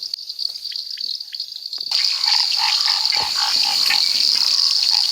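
Night chorus of frogs and insects at the river's edge: a steady high-pitched insect trill, joined about two seconds in by a suddenly louder frog chorus of repeated croaking notes, several a second.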